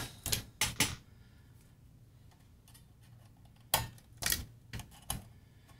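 Small sharp metal clicks of a screwdriver and suspension springs against the sheet-metal frame of an Alpine car CD changer mechanism as the springs are worked loose. There are about three clicks in the first second, a pause, then a quick cluster of about five clicks near the end.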